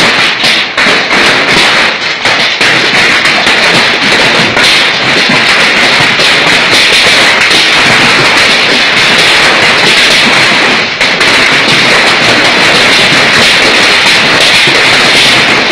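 Heavy hail falling: a loud, dense, steady clatter of countless small hailstone impacts. In the first couple of seconds single hits stand out, and after that they merge into a continuous hiss.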